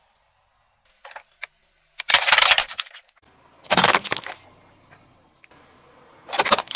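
A car tyre rolls over small objects and crushes them: a few faint clicks, then three loud bursts of crunching and cracking, the last near the end.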